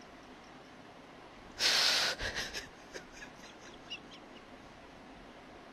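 A man weeping: a sharp gasping sob about one and a half seconds in, then a few quieter sobbing breaths.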